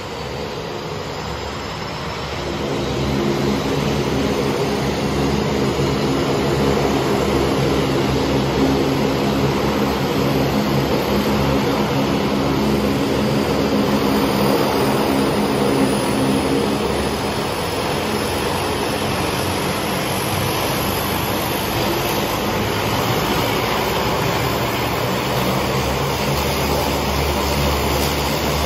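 Single-engine floatplane's propeller engine running as it taxis on the water, growing louder about two and a half seconds in, then easing off a little past the middle.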